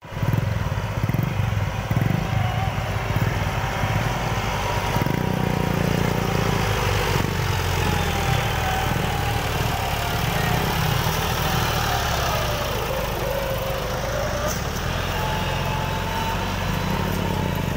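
Massey Ferguson 260 tractor's three-cylinder diesel engine running steadily under heavy load as it pulls a loaded trailer through mud.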